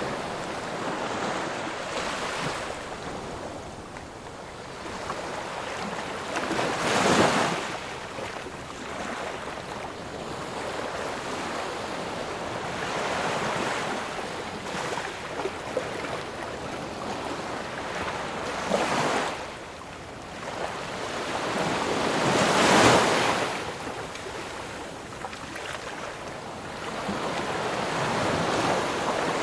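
Ocean waves breaking and washing up the shore in a steady surf, with three bigger waves cresting louder during the stretch.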